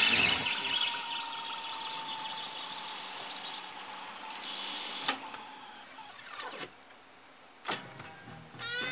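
Sony TC-650 reel-to-reel tape deck winding tape at speed: the high squealing chatter of the tape falls in pitch and fades over the first few seconds as the reels slow. Then come three sharp clicks of the transport, and music playback starts at the very end.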